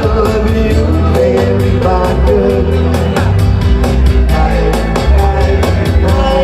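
Live band playing a rock-pop song, with a singer over a steady drum beat and bass.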